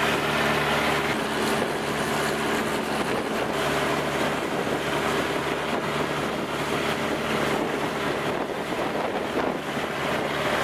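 Long-tail boat's engine running steadily under way, with wind buffeting the microphone and water rushing past the hull.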